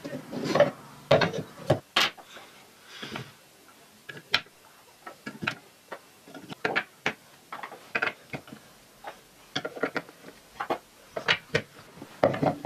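Wooden toy building pieces (blocks and round pegs) clacking and knocking against a wooden board and table as they are picked up and set in place. The knocks come irregularly, several a second at times.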